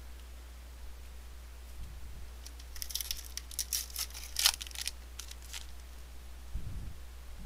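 A trading-card pack wrapper torn open by hand and crinkled as the cards are pulled out. A burst of sharp crackles runs for about three seconds in the middle, loudest about four and a half seconds in.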